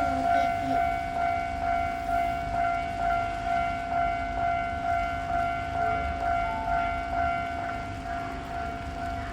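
Japanese level-crossing warning bell ringing in an even 'kan-kan' rhythm of about two strokes a second, over the low rumble of a train on the Keisei Main Line. The ringing slowly grows fainter.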